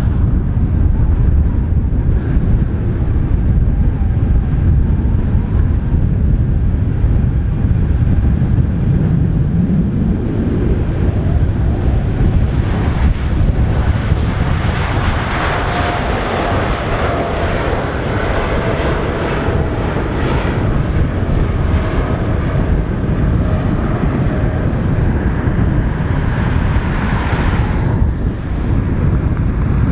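Boeing 747-8 freighter's four GEnx jet engines running at idle while the aircraft holds on the ground, heard as a steady rumble with a faint engine whine. A brief rushing hiss rises near the end.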